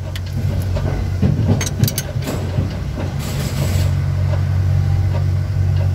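A steady low engine hum. A few sharp metal clinks of a wrench and screwdriver on the rocker arms come about one and a half to two seconds in, during valve lash adjustment.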